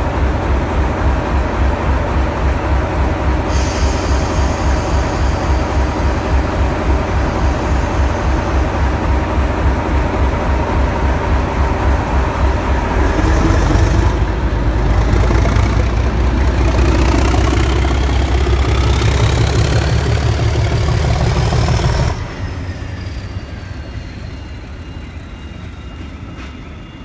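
Class 37 diesel locomotives moving past close by. The engine runs with a steady low beat, and from about halfway the engine note builds and a whine climbs steadily in pitch as they pull away under power. The noise drops off abruptly near the end and fades with a falling tone as the locomotives leave.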